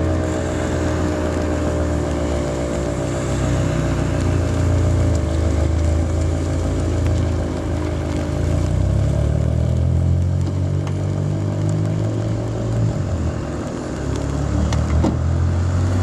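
Roof-top civil-defence siren winding down, its tone fading out with a slowly falling pitch over the first several seconds. Under it is a loud low rumble throughout.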